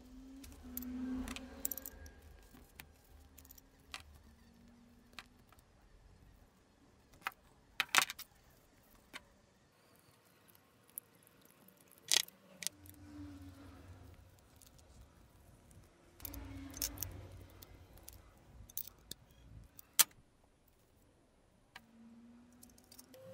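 Small metal pipe fittings and an airbrush regulator clicking and clinking as they are handled and threaded together. A few sharp ticks stand out, with soft rustling from handling and thread-seal tape between them.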